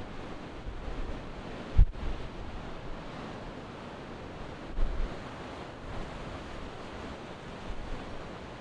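Strong wind over a rough sea: a steady rush of wind and waves, with gusts buffeting the microphone in low thumps. The sharpest thump comes about two seconds in and another near five seconds.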